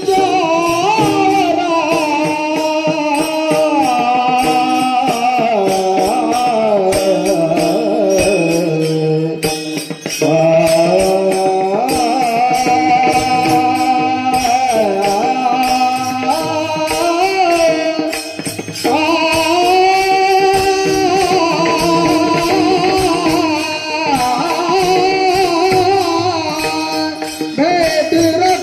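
Marathi devotional abhang sung by a solo voice in long, ornamented, gliding phrases over steady rhythmic percussion.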